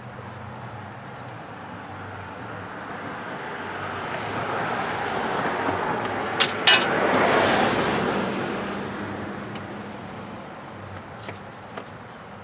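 A vehicle passing by, its noise swelling over a few seconds, peaking midway and dropping in pitch as it fades away. A couple of sharp metallic clicks sound near the loudest point.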